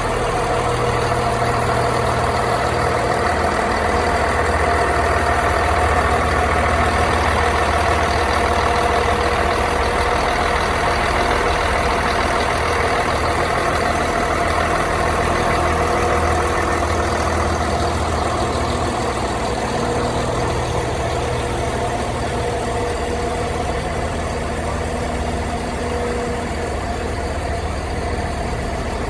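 A Class 170 diesel multiple unit's underfloor Cummins diesel engine idling steadily. About two-thirds of the way through, its sound eases slightly.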